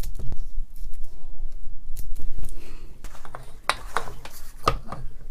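Metal clicks and scrapes from the demolition hammer's metal tube being twisted and worked off the piston it was stuck on, with a few sharp knocks, the loudest about two seconds in and between three and a half and five seconds in.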